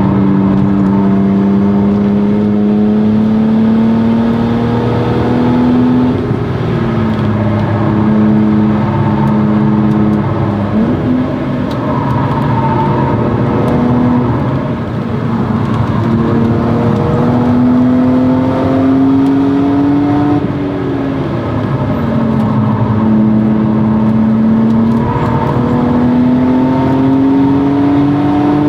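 1997 BMW E36 M3's straight-six engine, breathing through a Stromung cat-back exhaust, pulling hard on track. Its pitch climbs steadily and then drops back at each shift or lift, several times over.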